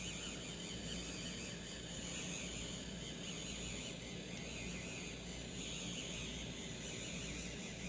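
Faint whirring of a 3D printing pen's small filament-feed motor as it extrudes PLA, over a steady low hum and hiss.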